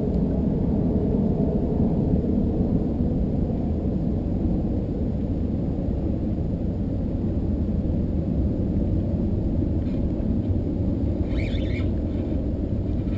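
Steady low rumble of wind buffeting the kayak-mounted camera's microphone, with a short faint crackle about eleven seconds in.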